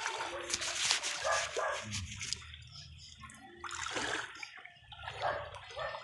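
Water splashing and sloshing as a person wades fast through a shallow stream, in a cluster of loud splashes over the first two seconds and another about four seconds in.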